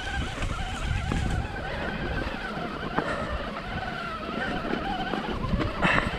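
Mountain bike rolling along a trail: tyre noise and wind buffeting the microphone, with a wavering whine running through it and a short rattle near the end.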